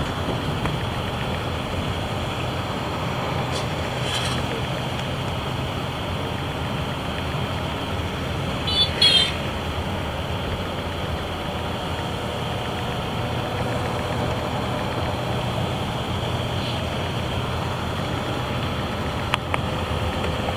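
Steady engine and road rumble heard from inside a moving vehicle, with a low hum under it. A brief high-pitched sound stands out about nine seconds in.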